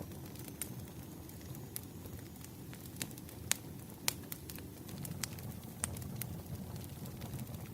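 Firewood burning and crackling: irregular sharp pops and snaps, a few of them louder, over a steady low rumble of the flames.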